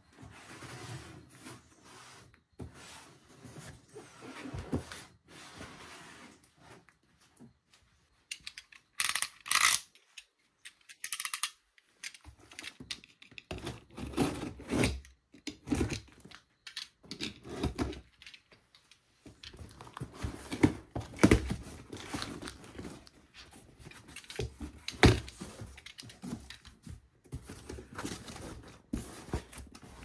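Packaging being opened and handled by hand: irregular rustling, scraping and light knocks of plastic and cardboard, with a loud rip about nine seconds in and a shorter one about two seconds later.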